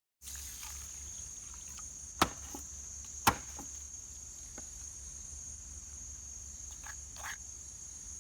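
Steady high-pitched insect chirring, with two sharp knocks about two and three seconds in and a few fainter taps.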